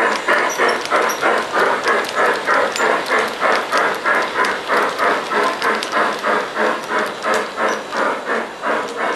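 Steam locomotive chuffing at a steady rhythm, between three and four chuffs a second.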